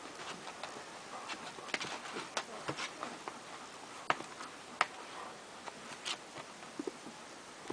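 Puppies moving about, making light, irregular clicks and taps.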